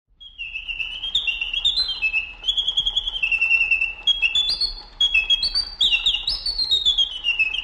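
Songbird singing: a quick, unbroken run of high chirps and short whistled notes that hop between pitches, some sliding downward.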